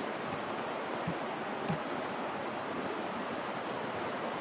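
Steady rush of a river in flood, fast brown water churning past its banks.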